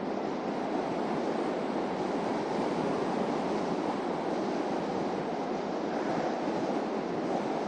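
Steady road and wind noise of a car driving: an even rush with no engine note or separate events.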